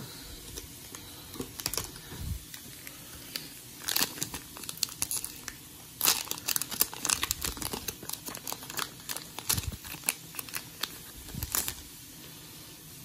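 Foil wrapper of a Pokémon booster pack crinkling and tearing as it is opened by hand, in clusters of sharp crackles about four seconds in, from about six to eight seconds, and again near the end.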